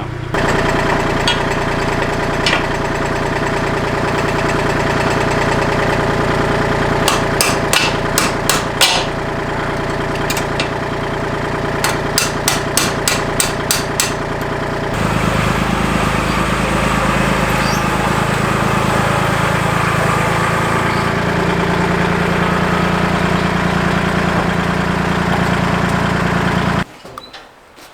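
Kubota L2501 compact tractor's small diesel engine running steadily, with two runs of quick, sharp metallic knocks partway through. The engine note shifts about halfway, and the sound cuts off suddenly near the end.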